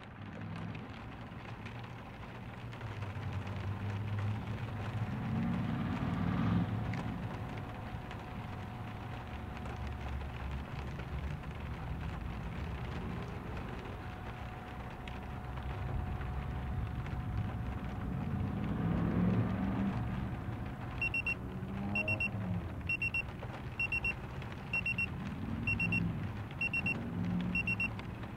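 Smartphone alarm going off: high, short beeps in pairs, about three pairs every two seconds, starting about three-quarters of the way in and repeating. Before and under it is a low steady rumble that swells twice.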